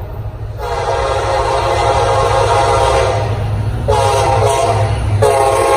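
Air horn of an approaching EMD F40PH passenger diesel locomotive blowing a series of blasts: a long one, a short one about four seconds in, then another long one starting near the end. The diesel engine rumbles low underneath.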